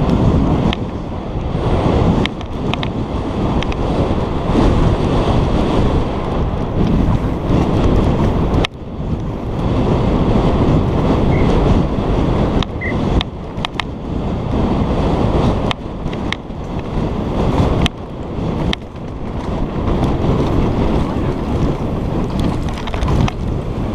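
Wind buffeting the microphone of a rider-mounted action camera on a fast downhill mountain bike run, over the rumble of tyres on a dirt trail. Frequent sharp knocks and rattles of the bike over rough ground, with a brief dip in the noise about nine seconds in.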